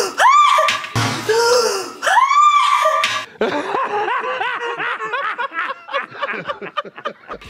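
A man laughing hysterically: two long, whooping laughs that rise and fall, then a fast run of cackles, about five a second, that stops suddenly near the end.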